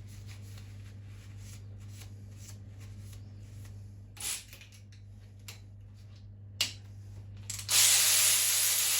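A few light metallic clicks and a brief hiss, then about eight seconds in a loud, steady spray from an aerosol can of cleaner, used to clean out an engine's big-end bearing area.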